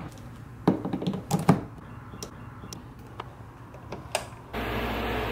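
A few sharp clicks and knocks as the 5,000 BTU window air conditioner is plugged in and its control knob turned, then about four and a half seconds in the unit starts up and runs with a steady fan whoosh: it works on first switch-on.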